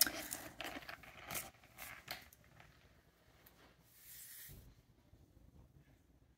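Plastic clicks and scrapes of a treat-dispensing tumbler toy being twisted and handled, tapering off after about two seconds, with a brief rustle about four seconds in.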